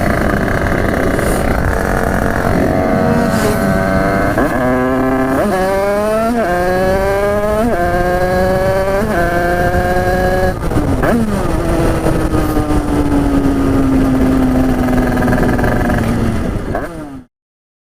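Tuned Derbi two-stroke motorcycle engine accelerating hard through the gears: its pitch climbs and drops back at each shift, about six times. Then it falls slowly as the throttle closes, and the sound cuts off suddenly near the end.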